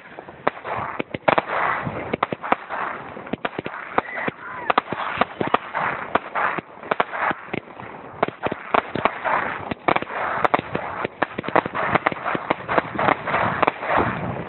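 Small fireworks going off: a rapid, irregular string of sharp cracks and pops, several a second.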